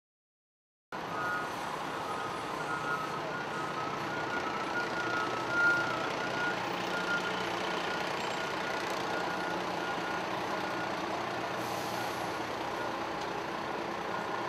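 Fire truck backing up, its backup alarm beeping over the running diesel engine, starting about a second in. There is a brief louder sound about halfway through.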